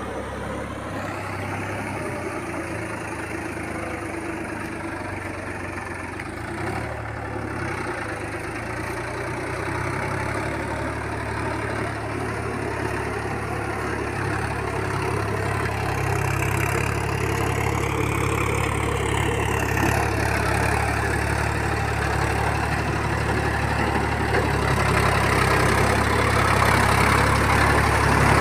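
Diesel tractor engine running steadily while it works a flooded paddy field on cage wheels, growing gradually louder as it comes closer.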